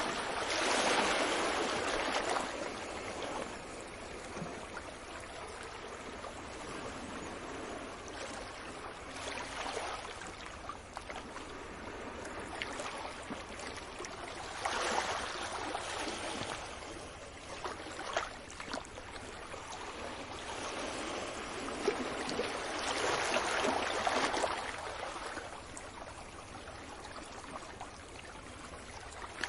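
Sea waves washing up on a beach: a steady rush of surf that swells louder three times, near the start, around the middle and about three-quarters through.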